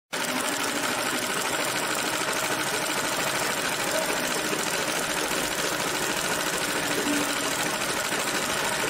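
Sewing machine running steadily, its needle stitching rapidly through fabric, the sound cutting off abruptly at the end.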